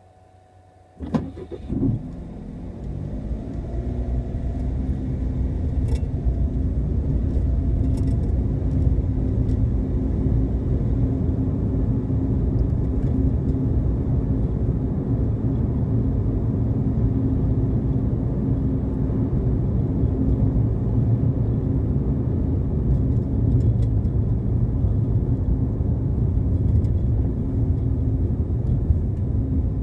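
Car engine starting about a second in, then running steadily with a low rumble and a held hum, growing louder over the first few seconds.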